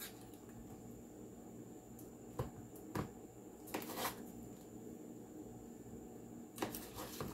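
Faint, short taps and clicks, four or five in all, as pats of margarine are cut and set down one at a time on a dry biscuit-mix topping in a glass dish.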